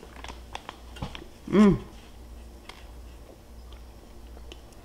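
Quiet mouth sounds of someone eating a bite of hot fried fish: soft clicks, with one short hummed 'mm' that rises and falls in pitch about a second and a half in.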